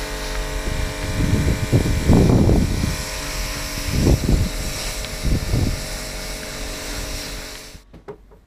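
Pressure washer running on a boat deck: a steady motor hum under the hiss of the spray, with a few louder low rumbles along the way. It stops abruptly near the end.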